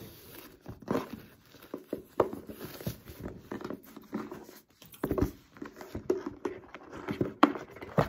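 Handling of a cardboard gift box: a satin ribbon slid off, the box set down and its fitted lid lifted, making rustling and irregular light knocks, with two sharper knocks near the end.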